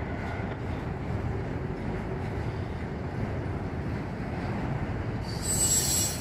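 Freight train of autorack cars rolling past, a steady rumble of steel wheels on rail. Near the end there is a brief high-pitched squeal.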